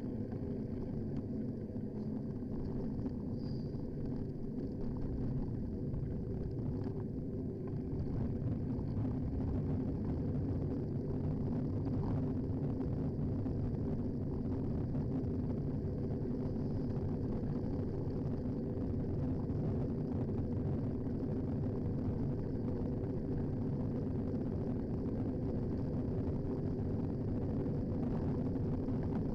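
Steady low rumble of wind buffeting and road vibration picked up by a handlebar-mounted action camera on a moving bicycle, getting a little louder about eight seconds in.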